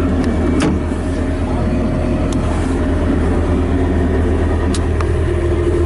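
Steady machinery hum inside a John Deere 50G mini excavator's cab, with a few light clicks.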